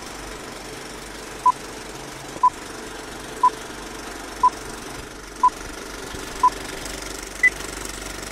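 Film-leader countdown beeps: six short identical beeps one second apart, then a single higher-pitched beep about a second later, over a steady film-projector rattle and crackle.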